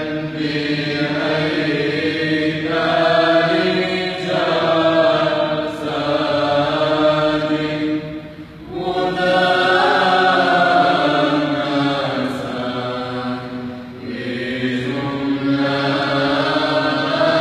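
Orthodox church choir singing a chant in sustained, held notes, with a short drop in loudness about eight and a half seconds in before the singing swells again.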